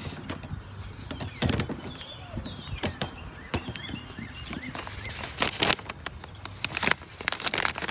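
Scattered clicks and rustles of handling, with several bunched together late on, while small birds chirp in the background.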